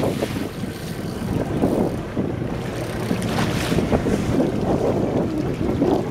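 Wind buffeting the microphone over water washing along a boat's hull, an uneven rushing noise.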